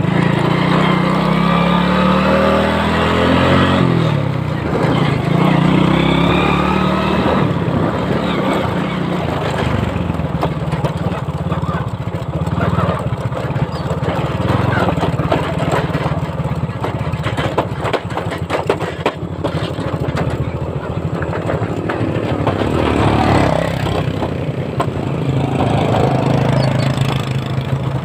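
Small motorcycle engine running while riding over a rough dirt track, its pitch rising and falling with the throttle, with frequent knocks and rattles from the bumps.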